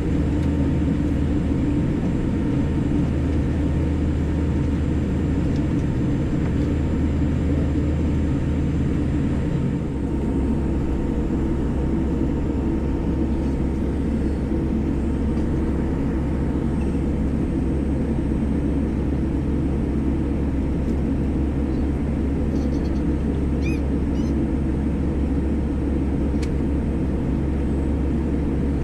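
Steady rumble of a Boeing 787 Dreamliner heard inside the passenger cabin: engine and airframe noise. Its low tone shifts about ten seconds in.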